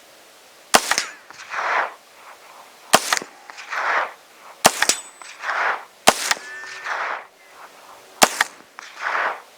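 A S&W M&P 15-22 short-barrelled .22 LR rifle fired five times at an unhurried pace, a shot every one and a half to two seconds. Each sharp report is followed under a second later by a softer, longer sound coming back from downrange.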